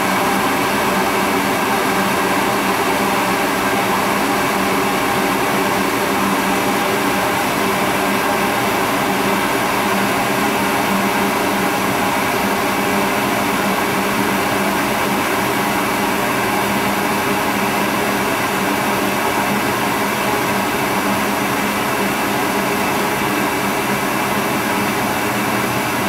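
Goodman 80% gas furnace running with its burners lit: a steady, unbroken rush of burning gas and fan noise with a faint hum in it. The burners stay lit, with no shutdown.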